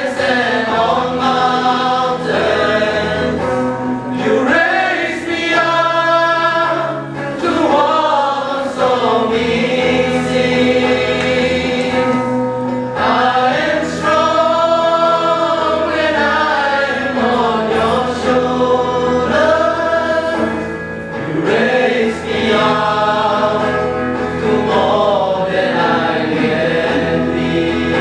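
A choir of young male voices singing a slow song together, with electric guitar accompaniment.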